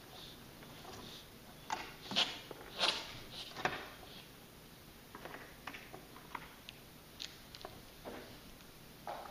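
Cats moving about on a hard tiled floor: a cluster of sharp clicks and taps about two to four seconds in, then a few faint scattered ticks.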